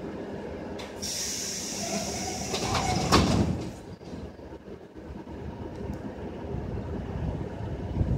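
ED4M electric train's pneumatic sliding doors closing: a hiss of air starts about a second in, then the doors bang shut about three seconds in. A steady low hum from the standing train runs underneath.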